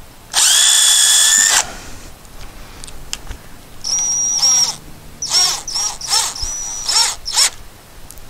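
Cordless drill running at speed for about a second while pre-drilling a pilot hole in pressure-treated wood. After a pause it runs again in a string of about six short trigger bursts as screws are driven to fix a conduit clamp.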